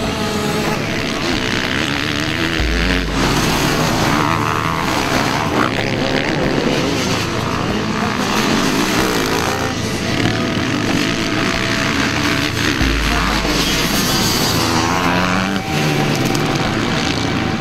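Enduro dirt bike engines revving, their pitch rising and falling again and again as the bikes ride past.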